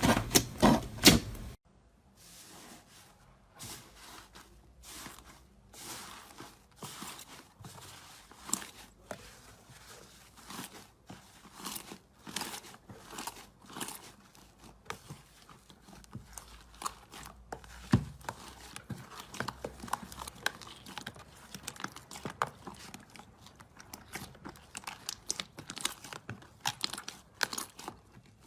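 Slime being squeezed and pressed by hand, making many short, irregular sticky pops and clicks. The clicks are loud and dense for about the first second and a half, then quieter and sparser after a cut.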